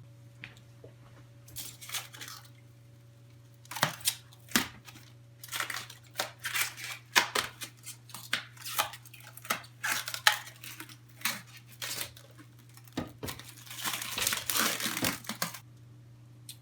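Crinkling and rustling in irregular bursts, with sharp clicks, over a steady low hum.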